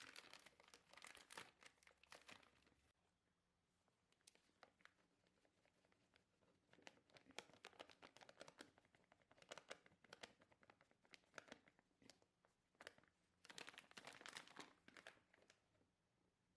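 Faint crinkling and tearing of packaging handled by hand, in three bursts with short quiet gaps between.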